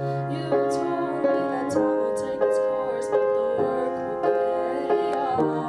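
Piano played slowly, held chords struck about every two-thirds of a second.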